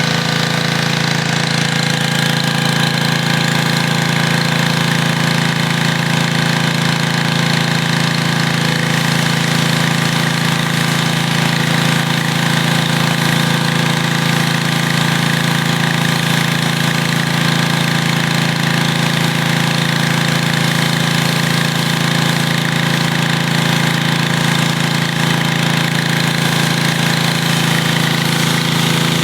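Snapper 3100 PSI 4.5 GPM gas pressure washer running steadily under load, its small engine humming evenly while the high-pressure spray hisses.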